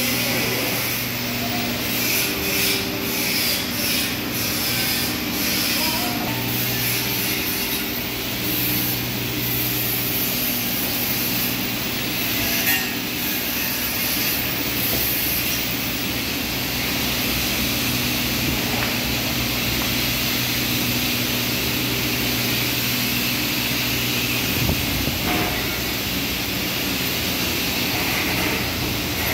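Steady drone of factory machinery: motors and air blowers running with a constant low hum and a hiss over it, and a few faint knocks.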